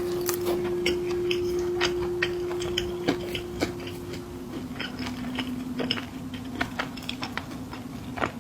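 Close-up snack eating: irregular crisp clicks and small crunches as snacks are bitten and handled. Under them runs a steady low hum that drops a little in pitch about four seconds in.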